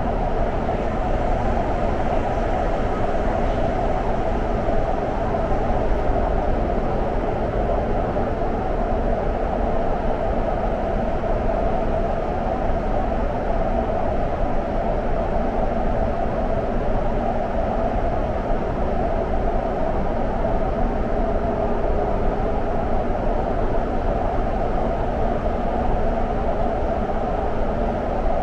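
Guangzhou Metro Line 18 train running through its underground tunnel: a steady, even rushing noise with a faint steady hum.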